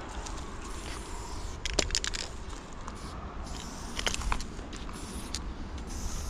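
Aerosol spray-paint can hissing in bursts as lines of paint go onto a brick wall, with a few sharp clicks about two and four seconds in over a low rumble.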